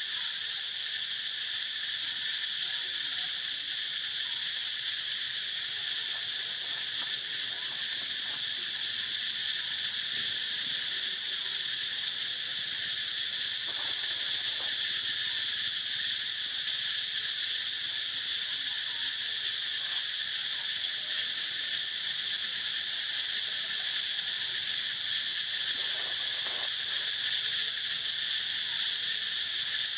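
Steady insect chorus: a continuous high-pitched drone that never breaks.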